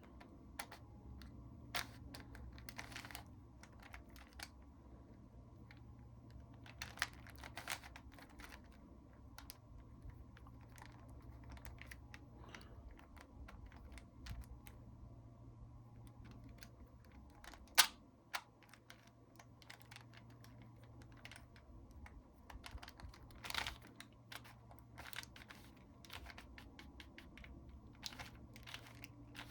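Plastic 4x4 Rubik's cube being turned by hand: irregular light clicks and clacks as its layers rotate and snap into line, with one sharper click about eighteen seconds in. A faint low hum runs underneath.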